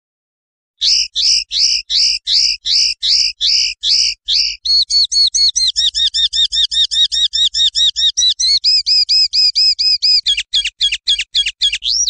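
Common linnet singing a long run of loud repeated notes. They start about a second in at about three a second, speed up to a quick trill of about six a second near the middle, and end in a fast series of falling notes.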